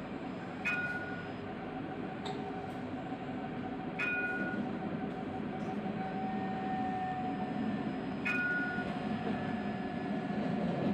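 Tram running along street track, heard from the front of the car: a steady rumble with a thin steady whine over it. A sharp click with a short ringing ding comes three times, about four seconds apart.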